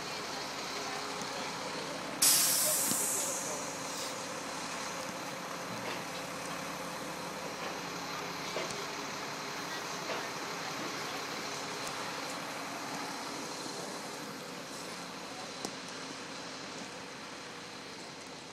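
Military cargo truck's diesel engine idling steadily, with a loud hiss of air from its brakes about two seconds in that fades away over about a second.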